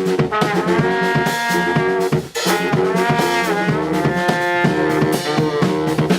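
Four-piece brass band playing an arrangement of a well-known tune, with trumpet and trombone parts in held notes. The band breaks off for a moment just after two seconds in, then comes back in.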